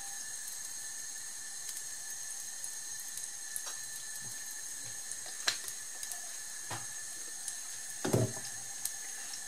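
Cooking oil poured in a thin stream into a nonstick frying pan, over a steady low hiss, with a few light knocks in the second half.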